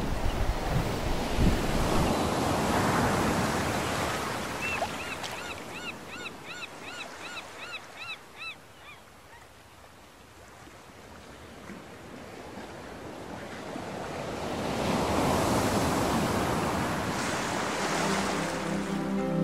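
Sea water splashing and washing, with wind buffeting the microphone, swelling early on and again later. About five seconds in, a bird gives a quick run of about a dozen high chirps, roughly three a second. Music comes in near the end.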